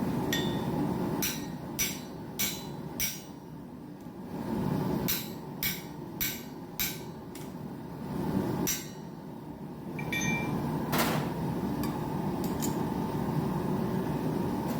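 Blacksmith's hammer striking hot steel on an anvil: a run of four blows, a pause, a run of five at about two a second, then single blows and a few lighter taps, each with a short metallic ring. A steady low rumble runs underneath.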